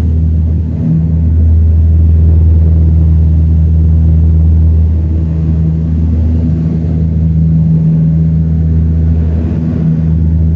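Propeller airliner's engines and propellers running with a steady, loud low drone made of a few deep steady tones, as the plane takes off.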